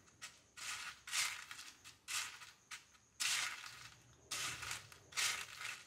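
Dry crushed instant noodles (Maggi) crunching and rustling in a bowl as a hand presses a batter-coated paneer piece into them, in several short scratchy bursts.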